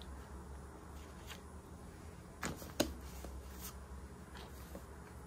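A sheet of brown paper bag being handled and laid down onto icing-covered gingerbread, with soft paper rustles and a couple of light taps about halfway through, over a low steady hum.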